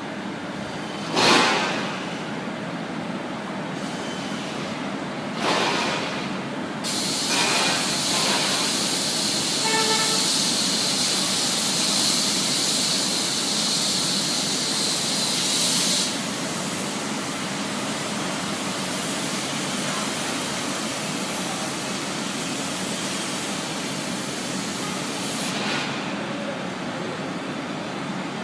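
Steady industrial machinery noise from a rotary smelting furnace plant, with a constant low hum. Two short loud knocks come in the first six seconds, and a loud hiss runs from about seven to sixteen seconds in, with a brief tone near ten seconds.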